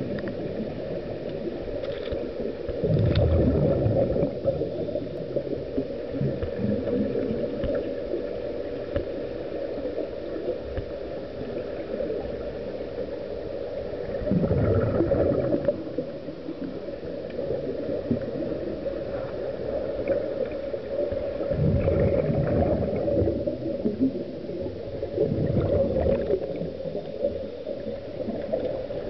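Underwater sound in a swimming pool: a steady low hum, broken four times by a second-long rush of bubbling, typical of a scuba regulator's exhaled air bubbles.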